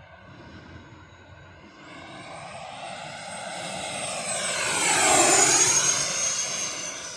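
3D-printed RC Fouga Magister model jet making a low flyby: a high-pitched whine that grows louder for about five seconds, peaks, then drops in pitch and fades as it passes and moves away.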